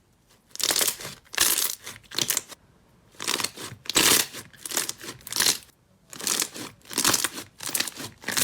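Slime being squeezed and pressed by hand, giving a string of crinkly, crackling squelches about two to three a second in three short runs.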